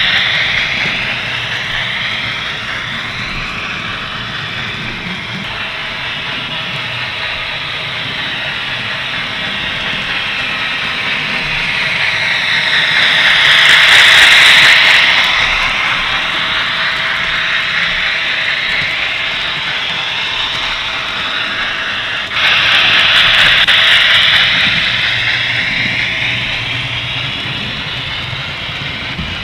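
Model railway train running past on metal track: the whine of a model Ce 6/8 Crocodile locomotive's motor and gearing with the rolling noise of the wheels on the rails. It swells as the train passes close by about 14 seconds in, then jumps suddenly louder about 22 seconds in.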